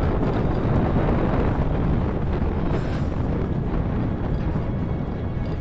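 Wind buffeting the microphone on a moving motorcycle, with the Super Splendor's engine running underneath as a steady rumble.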